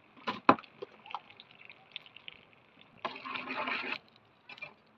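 Tadka sputtering: seeds and slit green chillies crackling in hot oil in a kadai. There are a few sharp pops near the start, and a louder stretch of sizzling about three seconds in that lasts about a second.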